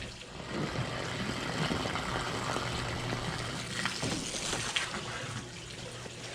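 Water from a garden hose running into a hot tub, a steady splashing rush that gets louder about half a second in and eases back near the end, over a steady low hum.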